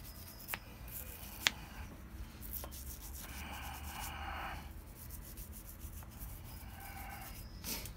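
A small brush being knocked and scrubbed to shake loose powdery Loctite residue: a few sharp taps in the first three seconds, then scratchy rubbing around the middle and again near the end.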